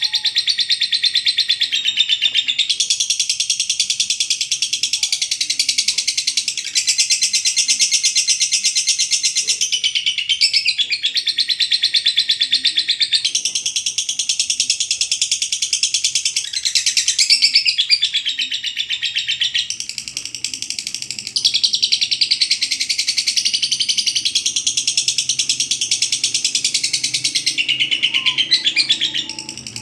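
Lovebird's long ngekek: a rapid, shrill, rattling chatter held in unbroken runs of several seconds each, with only brief breaks between them.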